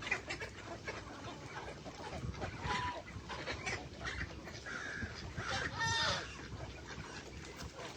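Domestic poultry calling: low scattered clucks and soft clicks, a short call near three seconds and a louder pitched call about six seconds in.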